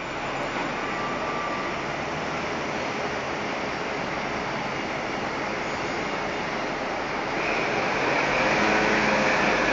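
Two V100 diesel locomotives running as they approach slowly with a work train: a steady rushing noise that grows louder about seven or eight seconds in, with a faint engine hum showing through near the end.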